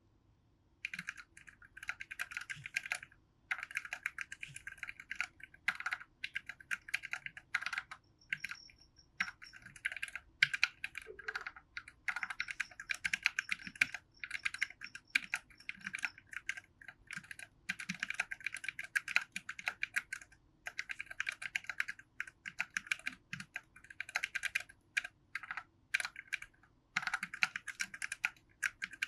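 Typing on a Quarkeys z40, a 40% ortholinear keyboard built with lubed low-profile TTC switches: fast runs of key clacks in bursts of a few seconds, broken by short pauses.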